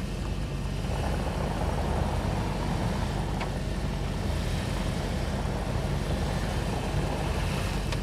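UAZ Patriot's engine running under load as the SUV rocks forward and back in deep snow, stuck and packing down a track to drive out. The engine pulls a little harder between about one and four seconds in.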